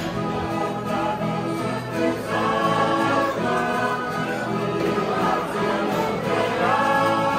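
Choral music: a choir singing held notes in several voices.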